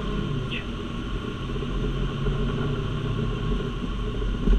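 Fire engine running, a steady low rumble with a constant hum.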